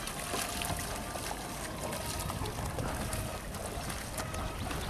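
Steady rush of open-water and wind noise with faint splashes from racing kayak paddles.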